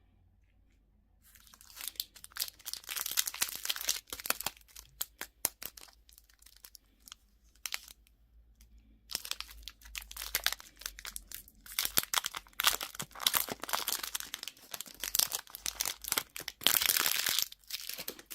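Candy wrappers crinkling and tearing as they are unwrapped up close, in two long crackly stretches with a short pause in between. The densest crackling comes near the end.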